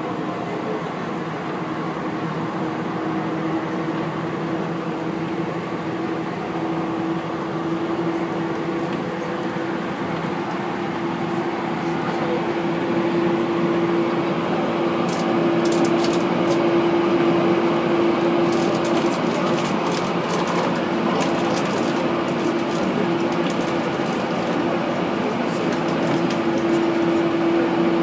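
Cabin noise of a JR 185 series electric train: a steady hum with one held tone over a hiss. It grows a little louder about halfway through, and scattered sharp clicks come in during the second half.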